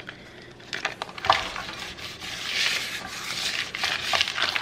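Paper rubbed in strokes around the inside of a round metal nonstick cake pan to grease it, a scratchy wiping sound with a few light knocks, the sharpest about a second in.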